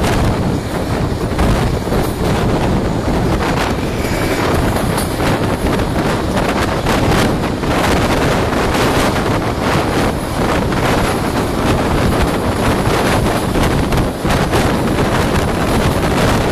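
Loud, steady wind rushing over a microphone held out of a moving train's window, mixed with the running of the train hauled by an HŽ 2044 diesel locomotive.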